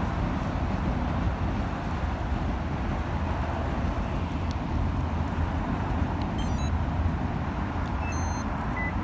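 Steady low rumble, with two short tunes of high electronic beeps from a two-way remote engine starter handset, about six and a half and eight seconds in.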